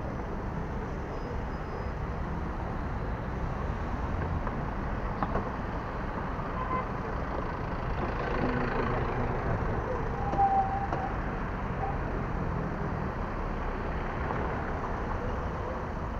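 Road traffic at a city intersection: a steady rumble of car engines and tyres passing by.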